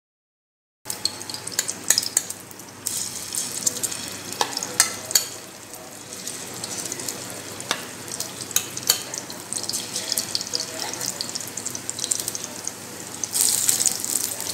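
Batter-coated chicken pakoras deep-frying in a pan of hot oil. A steady sizzle with sharp crackles and pops starts about a second in and grows louder near the end.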